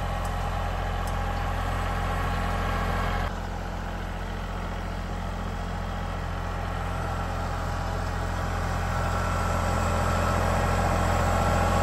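Kubota L3901 compact tractor's three-cylinder diesel engine running steadily. The sound drops a little about three seconds in, then slowly grows louder toward the end.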